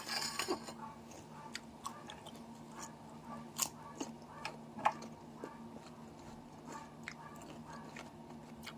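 A person biting into and chewing cucumber, with a crunchy bite in the first half-second, then scattered crisp crunches and chewing clicks.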